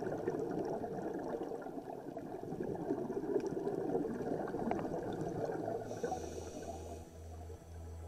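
Underwater ambient sound picked up by the camera: a steady rushing, bubbling hiss of water. About six seconds in, a low pulsing bass comes in underneath.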